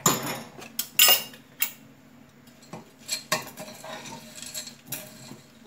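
A utensil clinking and scraping against a small enamelled saucepan as sliced almonds are stirred into hot glaze-and-glucose syrup to coat them for nougatine: a string of irregular knocks, the loudest about a second in.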